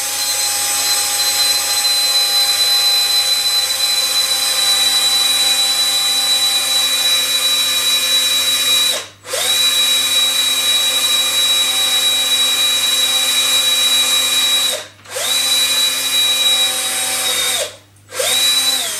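Cordless drill running steadily with a small metal bit, boring through the metal weight under the felt of a wooden chess pawn held in the hand. The motor whine stops briefly about halfway through, again about three-quarters in and once more near the end, each time starting up again.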